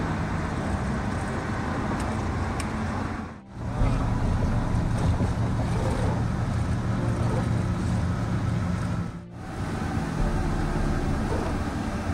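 Road and engine noise inside a moving vehicle at highway speed: a steady rushing noise with a low hum. It drops out briefly twice, about a third of the way in and about three quarters of the way in, and picks up again each time.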